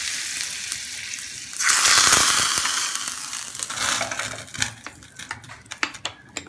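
Hot tempering oil with mustard and cumin seeds sizzling as it meets the coconut chutney, flaring up loudly about a second and a half in, then dying away. Near the end a spoon clinks against the glass bowl as the chutney is stirred.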